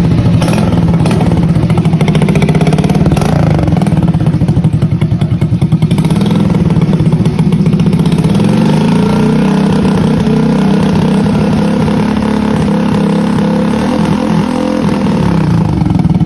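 Gilera Smash 110's small single-cylinder four-stroke engine running at idle just after being started, its pitch rising and falling slightly a few times. It is running for a test of a freshly wired homemade kill switch.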